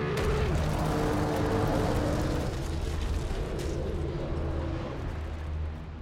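Film battle sound mix: a deep, steady rumble with crashing noise over it, and a few held notes in the first two seconds. It thins out near the end.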